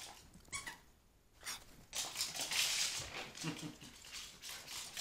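A terrier moving about while playing catch: scratchy scuffling noises, short at first and louder and busier from about a second and a half in.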